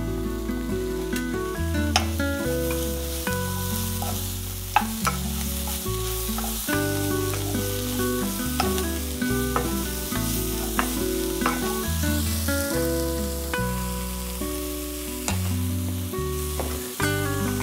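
Spinach and onions sizzling in a buttered frying pan as they are stirred, with a few sharp taps of the spatula against the pan. Instrumental background music with a moving bass line plays throughout.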